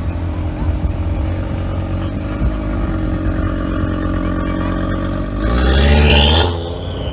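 Audi TT RS engine pulling away at low revs, then revving hard about five and a half seconds in, the note rising in pitch and getting louder for about a second before falling away.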